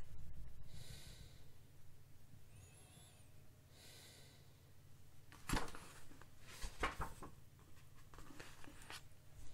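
Quiet handling of an open book held up and leafed through: soft paper rustles, then a few sharp taps about halfway through, over a low steady hum.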